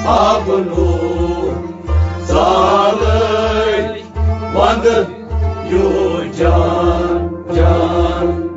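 Kashmiri Sufi devotional song: singing over harmonium, with bowed sarangi and plucked rabab accompaniment and a steady low rhythmic beat.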